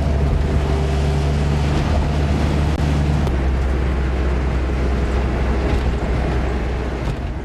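Car driving, heard from inside the cabin: a steady low engine drone under rushing wind and road noise.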